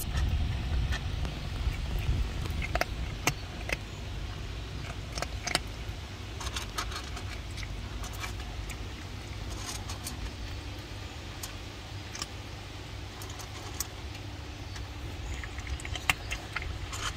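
Cat crunching dry kibble from a bowl: irregular sharp crunches and small clicks, over a steady low rumble.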